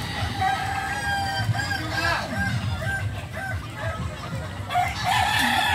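Several Kukuak Balenggek (Kokok Balenggek) roosters crowing, overlapping. The crows run on as strings of short, repeated notes, about three a second, the stepped crow the breed is kept for.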